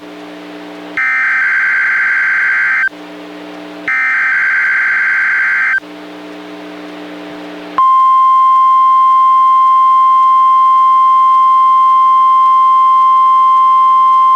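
NOAA Weather Radio alert signals from a weather radio for a Required Weekly Test: two bursts of the harsh, warbling SAME digital header data, each about two seconds long with short pauses between, then, about eight seconds in, the steady single-pitch 1050 Hz warning alarm tone begins and holds.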